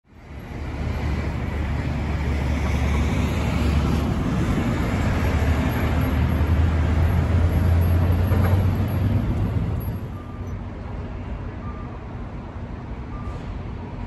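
A JR limited express electric train running past over a level crossing: a loud, steady rumble that holds for about ten seconds and then drops away. A faint beeping about once a second follows.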